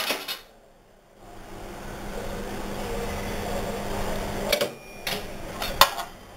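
Tea vending machine's dispensing pump running steadily for about three seconds, starting about a second in, with tea pouring from the nozzle into a cup. A few sharp clicks and knocks follow near the end.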